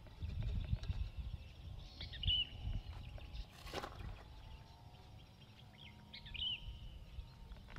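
Outdoor ambience: small birds chirping now and then in short calls, over an uneven low rumble, with one brief hiss about halfway through.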